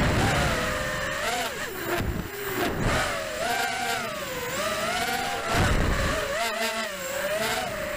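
Brushless motors and propellers of a ZMR FPV racing quadcopter, recorded on its onboard camera: a whine that keeps rising and falling in pitch as the throttle changes. Low rumbles of wind buffet the microphone several times.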